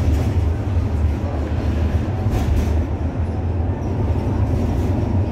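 V3A-93 tram running along the track, heard from inside the car: a steady low rumble of the running gear and wheels on the rails.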